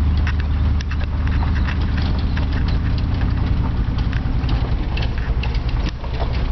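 A motor drones steadily under a stream of irregular rapid knocks and rattles.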